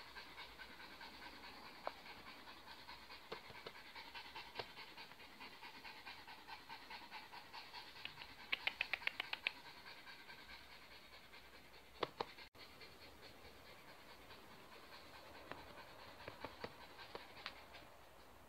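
Small dog panting rapidly, with a quick run of louder pants about nine seconds in.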